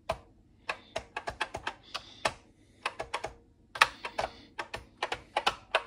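Keys of a Commodore VIC-20 (VIC-1001) keyboard clicking about twenty times in irregular clusters, the F1 key pressed again and again. The program does not respond, and the owner wonders whether the F1 key is not working.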